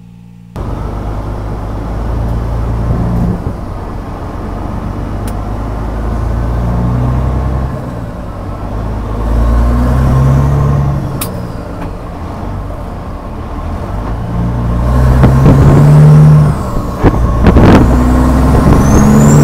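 Caterpillar 6NZ inline-six diesel in a Peterbilt 389 running through its straight-piped exhaust stack while the truck drives. The engine note rises and falls as it pulls and gets louder over the last few seconds, with a high rising whistle near the end.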